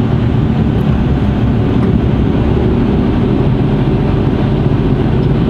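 Mercedes Actros truck's diesel engine running steadily while driving, with road noise, heard from inside the cab.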